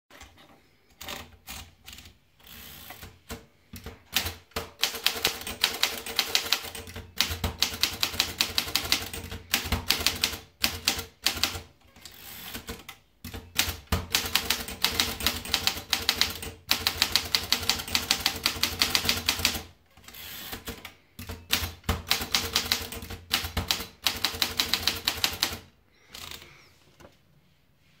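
Underwood Portable four-bank manual typewriter. A few scattered clicks come first while paper is fed in, then rapid runs of key strikes follow, broken by short pauses. The typing stops about two seconds before the end.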